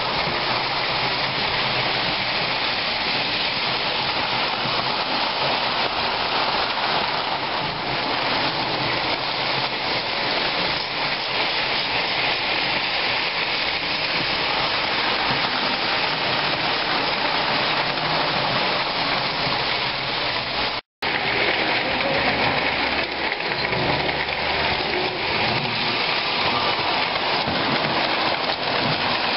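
Several Lionel O-gauge electric toy trains running on three-rail metal track: a steady rolling rumble of wheels and motors on the rails. It cuts out for an instant about two-thirds through.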